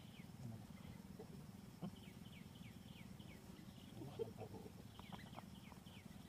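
Faint series of short, high chirps, each falling in pitch, about three or four a second, in two bouts: one near the start and one again about five seconds in. A soft low rustle and a few small knocks lie underneath.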